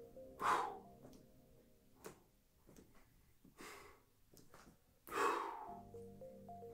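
A man breathing hard through his mouth as he works through resistance-band biceps curls: three loud exhales, a couple of seconds apart, the first and last the strongest, the breathing of effort near the end of a set.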